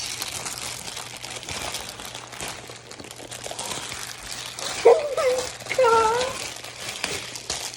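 Packaging crinkling and rustling as it is opened by hand, with two short wordless vocal sounds about five and six seconds in.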